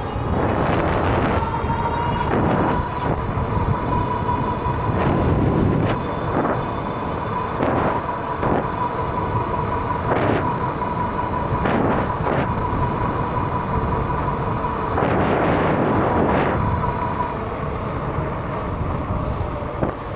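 Freedare Saiga electric bike ridden at speed: the motor gives a steady high whine that stops near the end, over heavy wind buffeting and rumble on the microphone.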